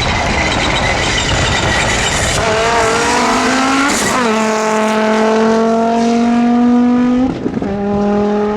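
Audi Quattro S1 rally car's five-cylinder turbo engine at full stage pace. After a noisy stretch off the throttle, the engine note climbs, drops sharply at a gear change about four seconds in, then pulls steadily before another quick shift near the end.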